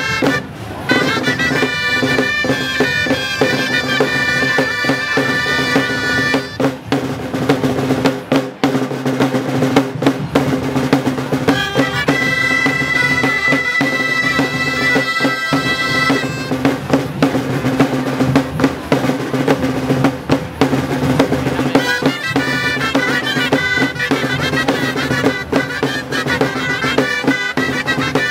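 Gralles (Catalan double-reed shawms) with a drum playing a traditional tune, the accompaniment to a castell being raised. Loud reedy melody with a steady beat and a long held high note near the middle.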